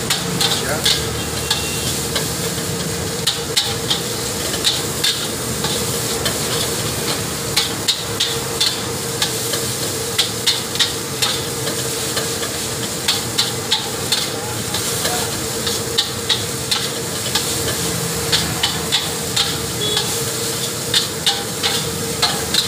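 A metal spatula scraping and clanking against a steel wok in quick irregular runs as fried rice is stir-fried, over a steady sizzling hiss.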